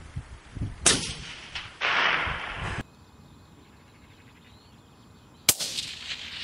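Two rifle shots from separate clips: a sharp crack about a second in, followed by a second of loud hiss that cuts off abruptly, and another crack about five and a half seconds in with a trailing echo.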